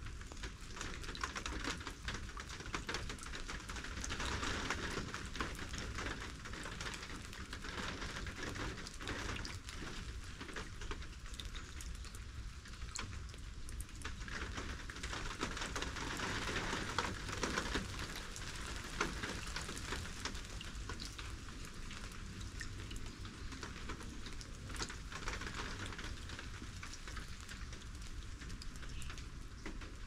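Steady rain falling, with many separate drops ticking on hard surfaces close by.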